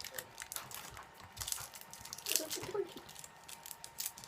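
Packaging being handled and opened by hand: a string of small clicks, crinkles and rustles from a cardboard box and wrapper.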